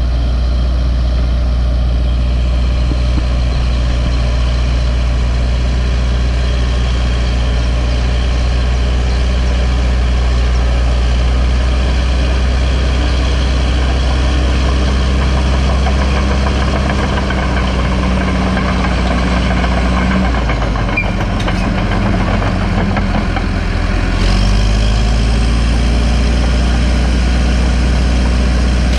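Caterpillar D4H crawler dozer's diesel engine running steadily while the dozer works the dirt. About twenty seconds in the engine note drops, then climbs back up some four seconds later.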